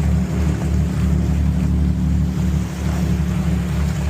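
A fishing boat's engine running steadily, a deep, even hum, with wind buffeting the microphone.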